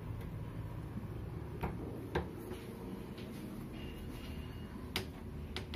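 A few sharp clicks and knocks, four in all, over a steady low hum, with a faint high tone lasting about a second near the middle.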